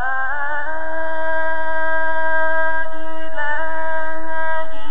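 A man reciting the Quran in slow, melodic chanted recitation, drawing out one long held note. The pitch steps slightly about three and a half seconds in and again near the end.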